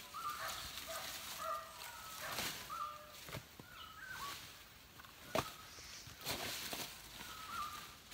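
Dry palm leaves crackling and rustling in several sharp bursts as they are pulled and handled, the loudest about halfway through, over short bird calls repeating about once a second.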